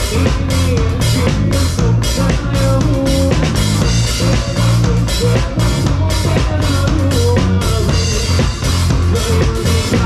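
Live band music with an acoustic drum kit prominent: kick, snare and cymbals keep a steady beat about two strokes a second over a bass line and a melodic line.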